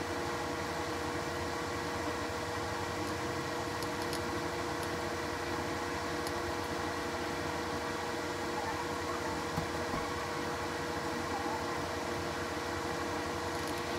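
Steady machine hum with a constant droning tone, with a few faint light ticks over it.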